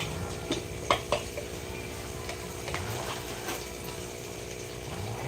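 Cooking utensils clinking and knocking against a pot or pan, a handful of separate light knocks, over a steady low hum.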